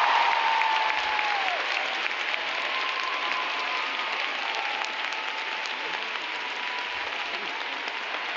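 Large arena audience applauding, a dense, steady clapping that eases off slightly over the seconds.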